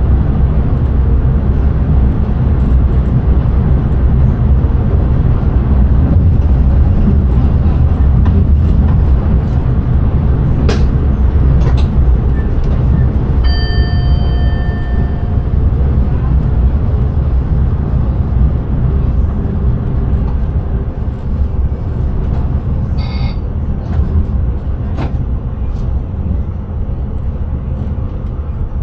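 Intercity train running at speed, heard from the driver's cab: a steady, loud rumble of wheels on rail with a few sharp clicks. About halfway through, a single held tone sounds for about two seconds.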